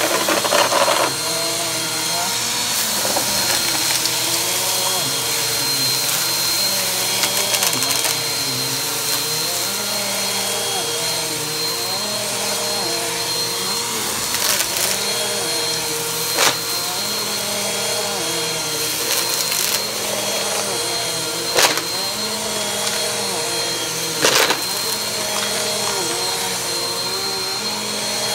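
Upright vacuum cleaner running steadily on carpet, with a few short sharp clicks and rattles scattered through.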